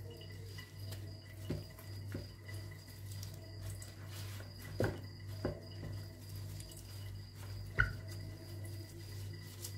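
Light rustling and scattered soft taps of hands picking over wild sirken greens, with a few sharper knocks about five and eight seconds in, over a steady low hum.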